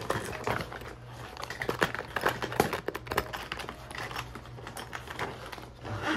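Toiletries and makeup being handled and pushed into a small bag: irregular light clicks, knocks and crinkling of small containers and the bag.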